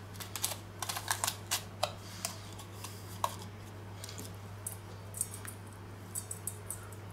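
A spice shaker handled over a steel bowl of minced meat: a quick run of small clicks and taps, then short high-pitched bursts of burger seasoning being shaken out onto the meat, over a low steady hum.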